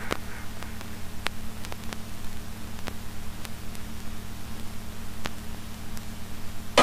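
Vinyl record playing the silent groove between tracks: steady surface hiss with a low hum and scattered clicks and pops.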